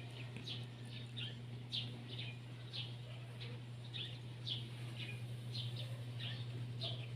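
A bird chirping over and over, short high chirps that sweep downward, about two a second, over a steady low hum.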